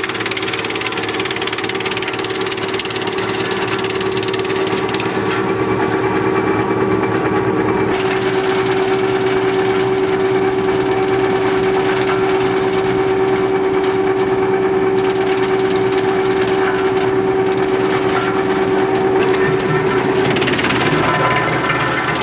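Model 216 drum wood chipper running, a loud steady machine hum with a rough, noisy spread over it. Near the end the sound turns rougher and brighter.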